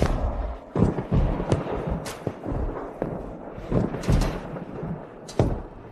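Heavy drum hits with a low rumble beneath, in dramatic background music: about six booming strikes at uneven intervals.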